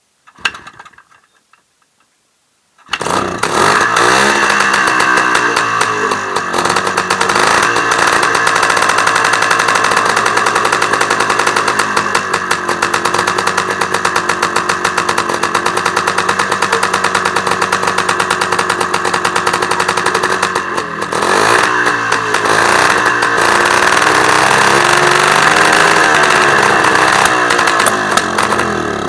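IZh Planeta 5's single-cylinder two-stroke engine starts up about three seconds in and runs with a fast pulsing beat. About two-thirds of the way through its pitch dips and wavers, with brief stumbles. This is the sneezing and backfiring that the owner later traced to a high-voltage spark plug lead that was loosely fitted and faltered when wet.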